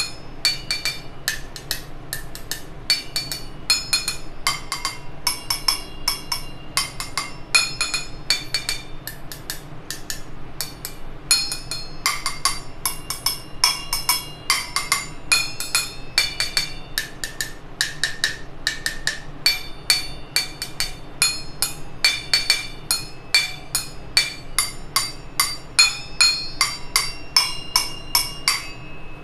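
Steel spoon tapping a row of stainless steel tumblers filled with different amounts of water: a steady run of ringing metallic clinks, about two or three a second, whose pitch changes from tumbler to tumbler with its water level.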